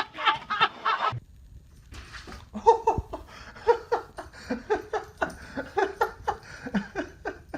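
A person laughing in a long run of short, repeated bursts, with a single knock about three seconds in.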